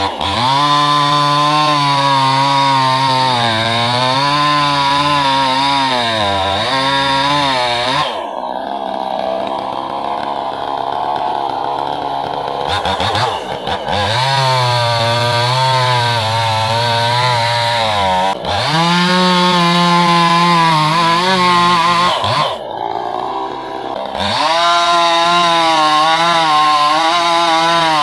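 Chainsaw engine running at high revs while cutting wood, its pitch wavering under the load. The revs drop back briefly several times, around a quarter, a half, two-thirds and four-fifths of the way through.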